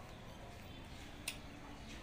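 Faint chewing of crispy fried intestine, close to the microphone, with one sharp click just past a second in.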